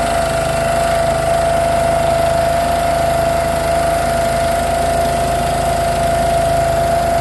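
Motorboat engine running at a steady speed, a constant low rumble with a steady hum over it.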